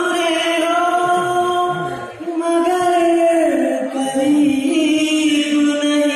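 A man singing unaccompanied into a microphone, holding long, drawn-out notes in phrases of about two seconds that step down in pitch.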